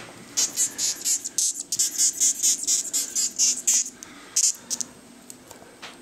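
Death's-head hawkmoth (Acherontia atropos) squeaking: a rapid run of short, high squeaks, about four a second for over three seconds, then one more. This is the moth's alarm squeak when disturbed or handled, made by pumping air in and out through its proboscis.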